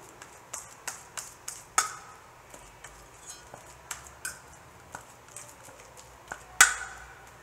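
Metal fork mashing ripe banana in a stainless steel bowl: irregular clinks and taps of the tines against the bowl, about two a second. The loudest clinks come about two seconds in and near the end, each ringing briefly.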